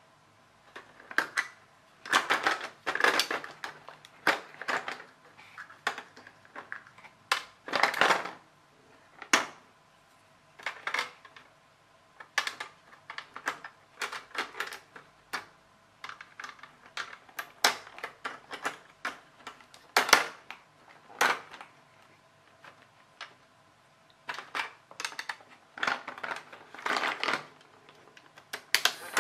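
Plastic parts of a snap-together electronics kit being unclipped, moved and pressed onto their press-stud connectors on a clear plastic base grid: irregular clicks, snaps and light plastic clatter in clusters with short pauses between.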